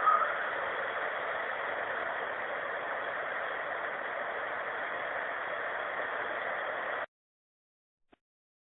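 Steady background noise of a low-quality recording, a hiss-like hum with a brief louder sound at the very start. It cuts off suddenly to silence about seven seconds in.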